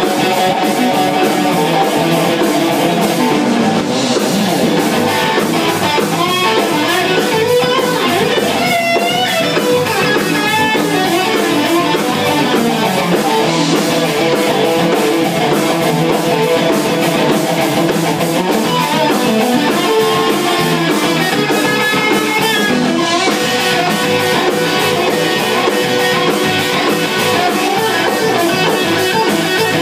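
A band jamming, with guitars to the fore over a drum kit, playing steadily and loudly throughout.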